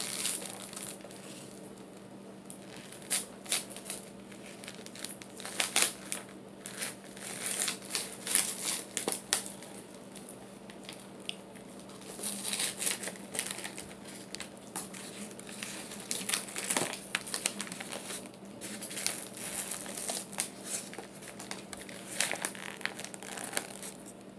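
Irregular crinkling and crackling in uneven flurries as baked starch chunks and their plastic packaging are handled and mixed together.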